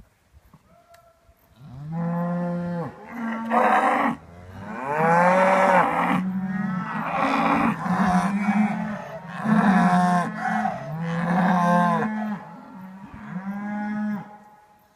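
Cows mooing, one long call after another with some calls overlapping at different pitches, starting about a second and a half in.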